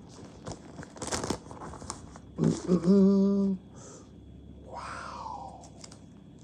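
Handling and rustling of a mailed package as it is being opened, with scattered clicks and a short tearing sound that falls in pitch near five seconds in. The loudest thing is a steady-pitched sound lasting about a second, starting about two and a half seconds in.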